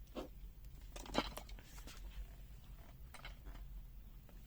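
A few faint, scattered clicks of a digital multimeter being handled, the loudest about a second in, as it is set up for a milliamp current test.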